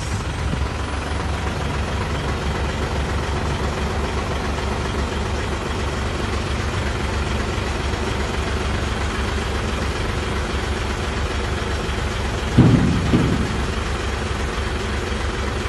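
Hino 500 FM 260 JD dump truck's diesel engine idling steadily, with an even low pulse. About three-quarters of the way through, a brief louder double thump.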